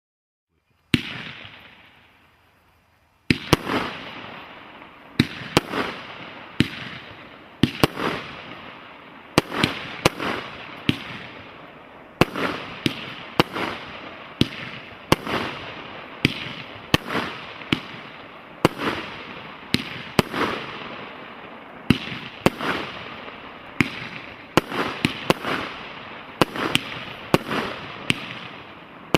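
A 36-shot aerial firework cake, the 'Blue Bird', firing. One shot goes off about a second in, then from about three seconds in shots follow steadily, one to two a second, each sharp bang trailing off into a crackling haze.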